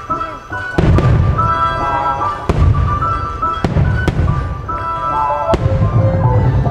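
Fireworks bursting over loud show music: about five sharp bangs, each followed by a low boom that rolls on.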